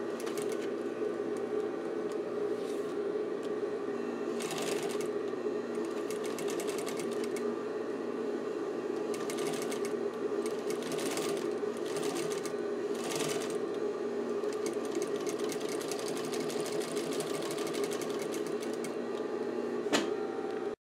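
Pfaff 1245 industrial walking-foot sewing machine, driven by a clutch motor, running steadily as it stitches. A single sharp click comes near the end.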